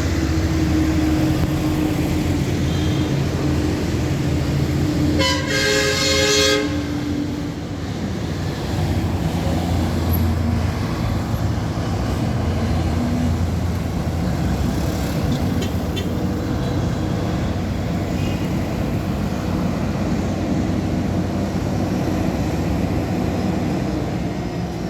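A truck's engine runs steadily in street traffic. A vehicle horn honks once for a little over a second, about five seconds in.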